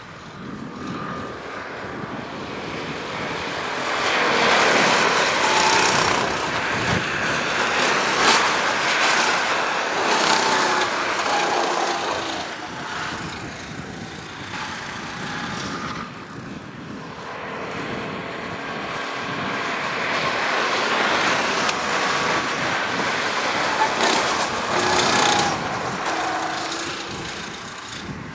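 Rental go-kart engines running around the track. Their pitch rises and falls as the karts speed up and slow for corners, and the sound grows louder twice as karts pass close by.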